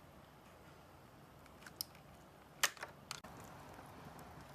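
About four faint, sharp snips and clicks, the loudest just past halfway, as cutters clip away the deformed plastic edge beside an air-conditioner indoor unit's drain pan.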